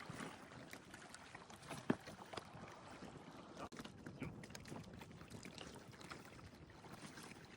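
Faint running water of a river, a steady trickling wash, with scattered small ticks and one sharp click a little under two seconds in.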